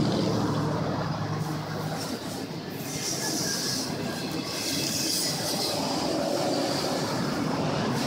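Double-stack container cars rolling past: a steady rumble and clatter of steel wheels on rail, with a high wheel squeal coming and going in the middle. A low tone fades out in the first two seconds.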